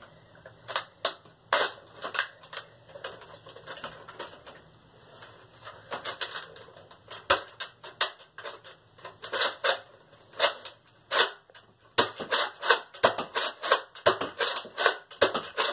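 Plastic clicking and clacking of a Nerf Retaliator dart blaster being worked to clear a jam: the priming slide racked and the trigger pulled. The clicks are scattered at first and then come in quick clusters through the second half.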